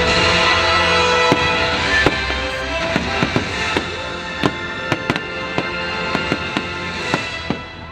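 Fireworks going off in a quick run of sharp bangs and crackles over the show's orchestral music. The bangs come more and more often after the first few seconds, while the music fades near the end.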